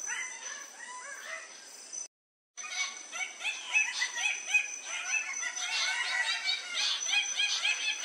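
Red birds-of-paradise calling at a lek: several birds giving rapid, overlapping runs of short calls, with a steady high tone behind them. The sound drops out completely for about half a second about two seconds in.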